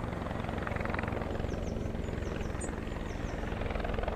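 Helicopter flying low, its rotor blades chopping steadily over the engine noise.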